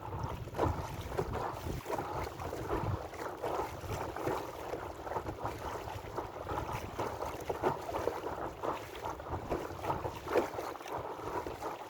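Water splashing and gurgling in quick irregular slaps along the hull of an inflatable sailing dinghy under way, with wind rumbling on the microphone.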